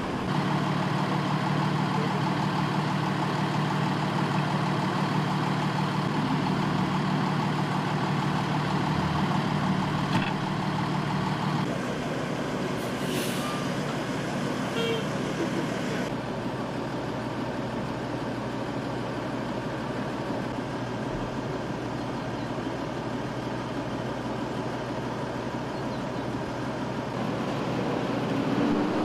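Steady drone of heavy diesel vehicles idling over a wash of street traffic noise; the engine drone stops about twelve seconds in, leaving the traffic noise, with a few brief faint high sounds shortly after.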